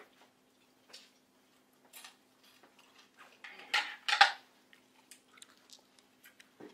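Scattered clinks and clatters of dishes and cutlery handled on a table, loudest in two quick clatters about four seconds in, over a faint steady hum.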